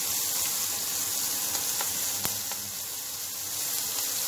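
Chopped onion sizzling in melted butter in a frying pan: a steady hiss with a few small pops, the sharpest about two seconds in.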